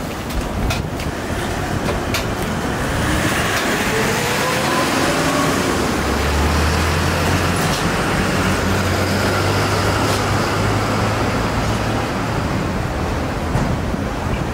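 Large flat griddle sizzling steadily under a spread of shredded cabbage and eggs. Over the sizzle a motor vehicle's engine hum comes in a few seconds in, holds low and steady, and fades near the end.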